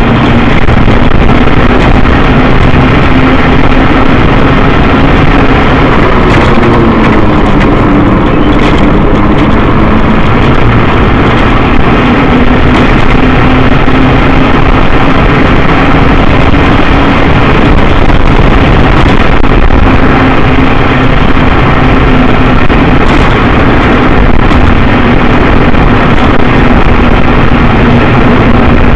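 Motor scooter riding along, its engine running steadily under heavy wind noise on the camera's microphone, loud and harsh. The engine note swings up and back down about seven to nine seconds in.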